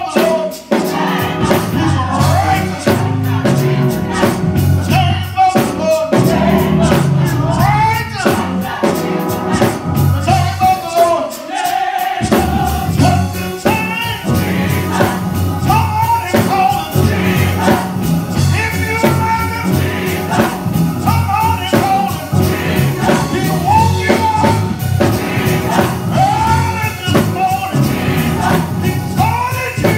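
Live gospel music: a male lead singer with a choir singing behind him. A steady percussive beat drives the first twelve seconds or so.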